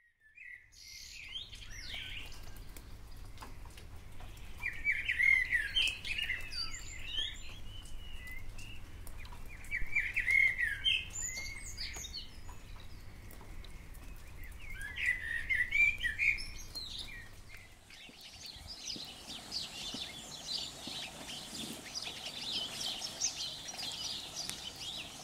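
Wild songbirds singing: short chirping phrases come every few seconds over a low steady rumble, and past the middle the rumble stops and a denser chorus of high chirps takes over.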